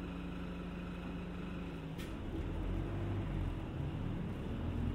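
Route bus heard from inside the cabin: the engine idles with a steady hum, then about two seconds in there is a single click and a louder low engine rumble builds as the bus moves off.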